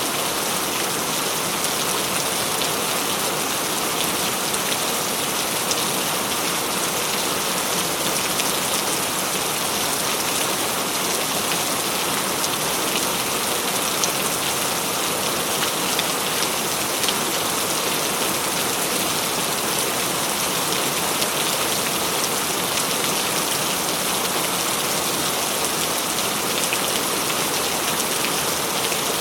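Heavy rain falling steadily and loudly, a dense hiss with fine patter of drops hitting a surface.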